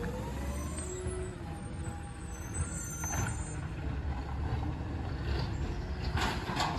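Garbage truck running with a steady low rumble, its engine note rising in the first second, and short bursts of hiss about three seconds in and again near the end.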